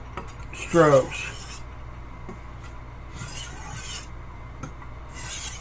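Steel blade of a 10-inch Wusthof Classic chef's knife stroked across a water stone with a scraping hiss, about three strokes. These are a few extra strokes to touch up the edge at the heel.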